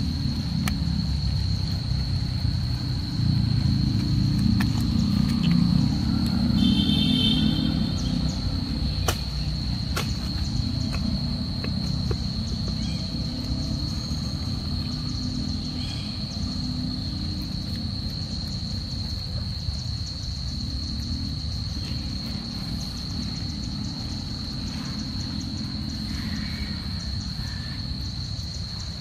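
A steady, high-pitched insect drone, one unchanging tone, over a louder low rumble of background noise. A brief squeaky call comes about seven seconds in, and two sharp clicks near nine and ten seconds.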